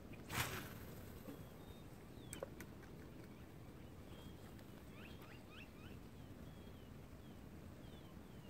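A spinning rod being cast: a brief whoosh of rod and line about half a second in, followed by a couple of sharp clicks around two seconds in. Small birds chirp repeatedly in the background over a steady rumble of wind on the microphone.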